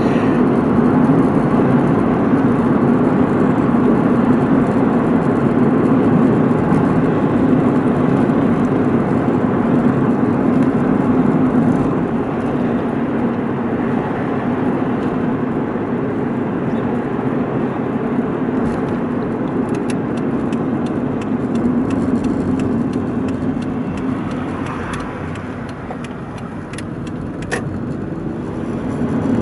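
Motorhome driving, its engine and road noise heard from inside the cab as a steady rumble that drops in level near the end, with a few faint clicks in the later part.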